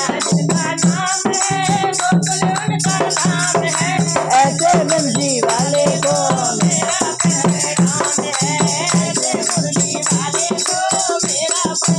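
Devotional bhajan kirtan: a boy and women singing together over a hand-played dholak drum, with a plastic clapper rattle, small hand cymbals and clapping keeping a fast, steady beat.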